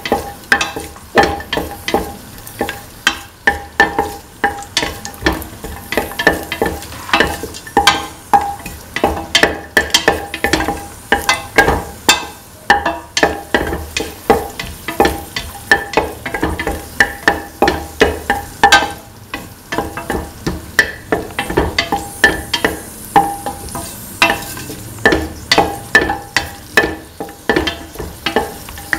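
Spatula stirring cashew nuts frying in ghee in a stainless steel pan: repeated scraping, clinking strokes, about two a second, the metal pan ringing briefly with each stroke over a light sizzle.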